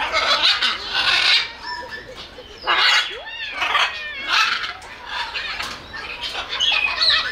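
Macaw parrot calling: a series of loud, harsh squawks, about half a dozen over a few seconds with short pauses between them.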